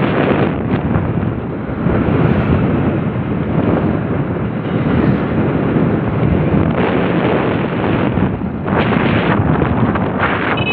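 Wind buffeting a phone's microphone while riding along an open road: a loud, steady rushing roar that swells in a few gusts.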